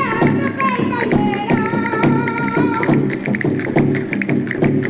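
Folk music: a bending melody over fast, steady percussion strikes. The melody drops out about three seconds in and the percussion carries on.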